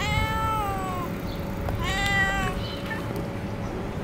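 Street cat meowing twice: a long meow that drops in pitch at its end, then a shorter one about two seconds in.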